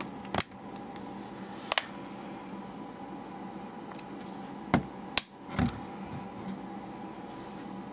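Hard plastic snapping and clicking as the back shell of an OtterBox Defender case is pressed and clipped onto a phone. About six sharp clicks come at uneven intervals, two of them in quick succession.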